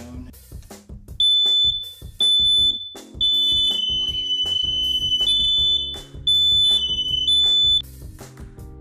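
Hardwired smoke alarm sounding during a push-button test: a run of loud, high-pitched beeps starts about a second in, with a slightly lower second tone sounding between and under them. It stops shortly before the end.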